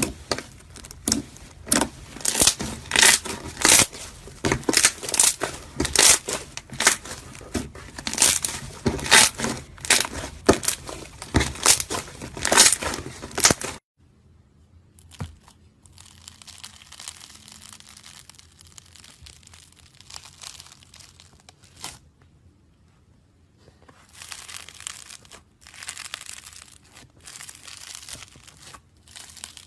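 Slime being squeezed and stretched by hand, giving dense, loud crackling and popping. About halfway through it cuts off suddenly to softer, quieter squelching that pauses briefly and then resumes.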